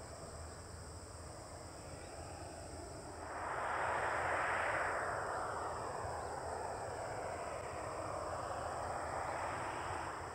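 Jet airliner engine noise swells up about three seconds in and then slowly eases, over the steady chirping of insects in the grass.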